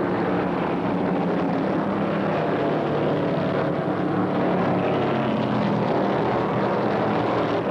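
V8 engines of two NASCAR Grand National stock cars, a Dodge Charger and a Mercury, running flat out in a close race, a steady unbroken drone.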